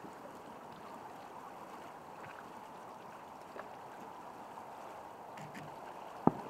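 A single sharp firework bang about six seconds in, with a faint pop near the middle, over a steady background hiss.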